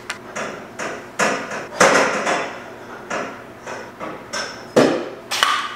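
Irregular metallic clanks and knocks, about a dozen, some with a short ring; the loudest come about two seconds in and twice near the end.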